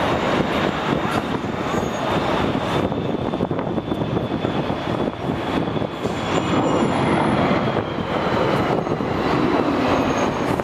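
Boeing 747-400F jet engines heard from a distance as the freighter lands: a steady rough roar with a faint high whine that slowly falls in pitch.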